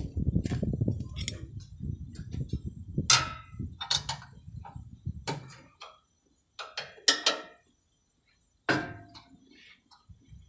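Hand tools clinking and knocking on the metal fittings of a truck's diesel feed pump, about half a dozen separate strikes, over a low rumble that dies away about halfway through.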